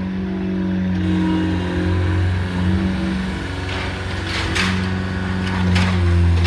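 Optimas H99 paving-stone laying machine's engine running steadily, its pitch shifting a little as the machine drives with its clamp head raised. From about four seconds in, a few short rasping noises join the engine.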